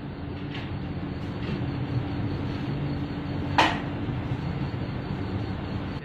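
Steady low mechanical hum with one sharp knock about three and a half seconds in, where a faint steady tone within the hum stops.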